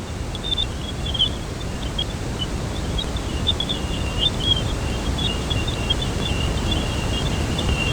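Sonified space-plasma data from NASA's Juno spacecraft crossing Jupiter's bow shock into its magnetic field: electromagnetic signals turned into audio. It is a steady, deep roar of rumbling noise with a thin layer of rapid high crackling chirps above it, growing slightly louder.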